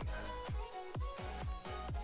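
Background electronic music with a steady kick-drum beat.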